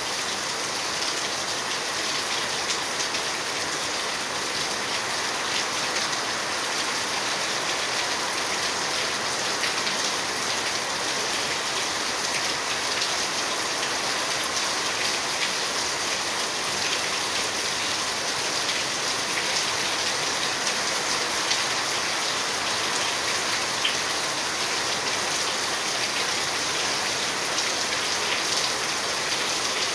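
Steady rain falling and hitting surfaces, a continuous hiss with many small drop ticks.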